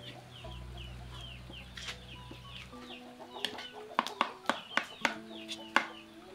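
Chickens peeping and clucking, a quick run of short falling cheeps several times a second. From about four seconds in comes a string of sharp taps and scrabbles: a kitten's claws on a woven bamboo basket.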